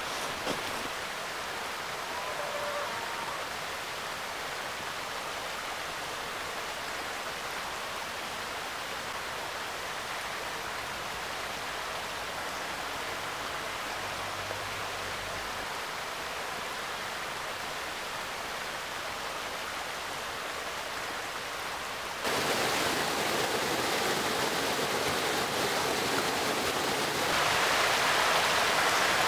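A steady soft hiss, then, about three-quarters of the way in, the louder rushing of a mountain creek and small waterfall running over rocks, swelling again near the end.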